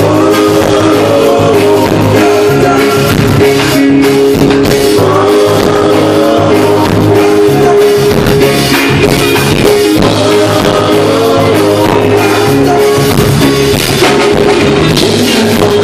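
Live reggae band playing loudly: drum kit, keyboards and guitar keeping a steady beat, with a vocal over it.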